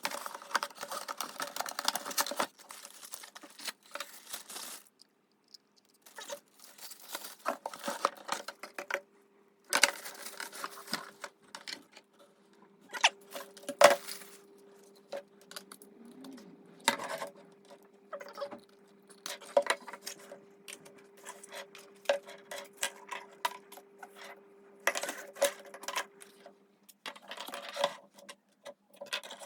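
Unpacking and handling a handheld car vacuum cleaner and its packaging: irregular rustling and scraping with sharp clicks and clinks of plastic parts, coming in short bouts with brief pauses. A faint steady hum runs underneath.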